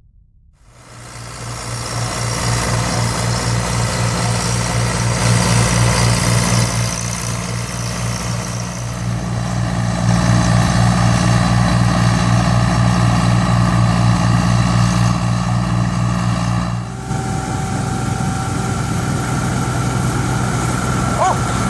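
John Deere 925 combine harvester running: a steady diesel drone with a low pulsing tone under a broad machinery noise. It starts abruptly about a second in and its character shifts suddenly about four seconds before the end.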